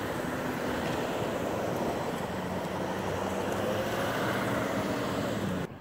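Cars driving past close by on a road, a steady rush of tyre and engine noise that cuts off suddenly near the end.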